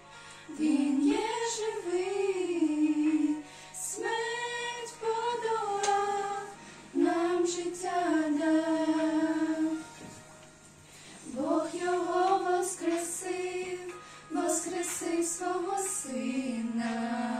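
Three women singing a slow Ukrainian religious song about the crucifixion, in held phrases with short pauses between them.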